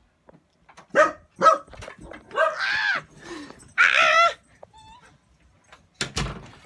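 Excited pet dog greeting someone coming home: two sharp barks about a second in, then two long, wavering whines, with a thump near the end.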